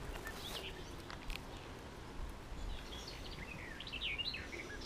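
Small birds chirping, a quick run of short rising and falling chirps in the second half, over a faint steady outdoor background hiss.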